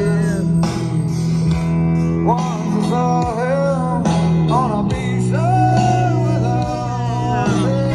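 Music: a song with a singing voice over guitar and sustained low notes.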